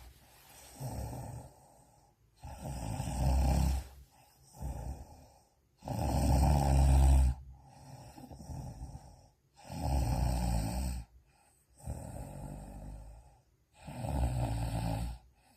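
A sleeping person snoring heavily, a loud rumbling snore about every four seconds with softer breaths between. It sounds like a tractor.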